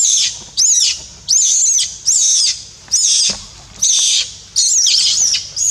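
Macaque screaming: shrill, high-pitched arching squeals repeated about every two-thirds of a second, roughly nine in a row.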